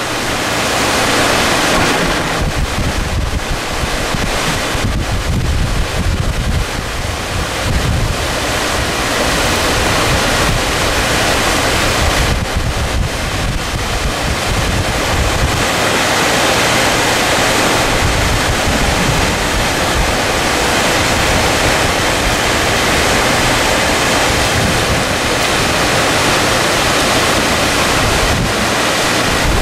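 Loud, steady rush of muddy floodwater churning through a flooded channel, with wind buffeting the microphone.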